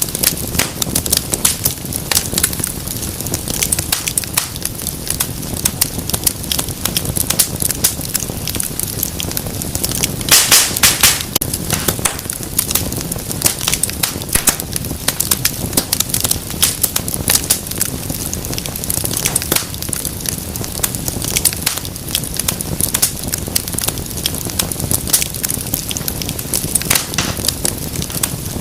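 Wood fire crackling and popping over a low steady rumble of flames, with a dense flurry of sharp pops about ten seconds in.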